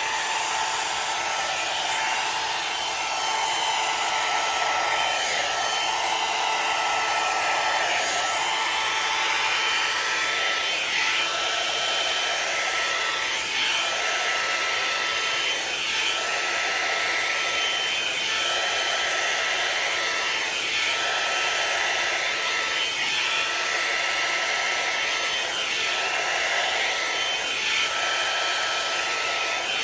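Hot-air round brush dryer blowing steadily on its first, cool-air setting, with a faint steady whine in the airflow. The sound dips briefly about every two to three seconds as the brush is drawn through the hair.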